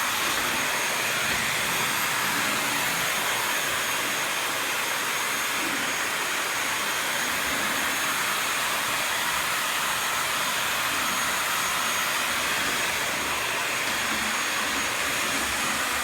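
Bissell 3-in-1 stick vacuum running steadily: a constant rush of air with a thin, steady high-pitched whine from its motor.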